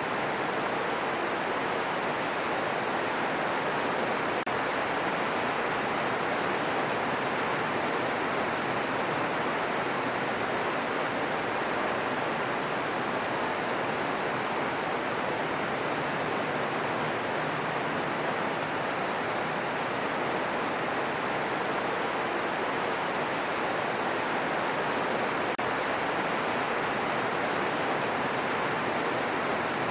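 Steady green noise: an even, unchanging hiss with most of its energy in the middle of the hearing range, and no thunder.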